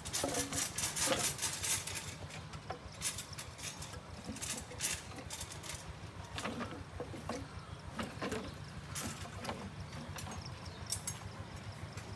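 Irregular knocking and clattering of building work on wooden shuttering and bamboo props: a quick run of knocks near the start, then scattered single knocks, over a steady low rumble.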